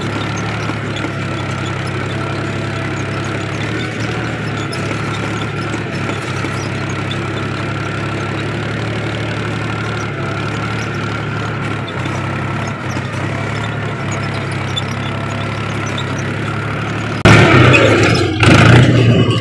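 Diesel tractor engine running steadily, heard from the driver's seat. About seventeen seconds in the sound turns suddenly much louder and rougher for the last two seconds.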